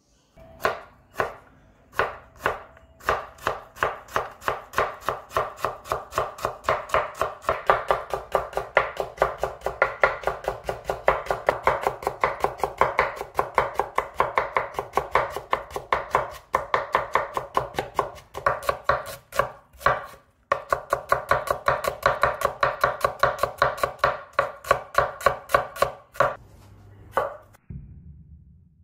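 Chef's knife chopping raw potato into thin strips on a wooden cutting board. A few spaced strokes, then rapid, even chopping at several strokes a second, with a brief break about two-thirds of the way through, stopping shortly before the end.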